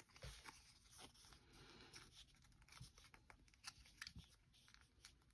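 Near silence, broken by faint, scattered small clicks and rustles of a sticker being peeled and pressed onto small plastic Beyblade parts.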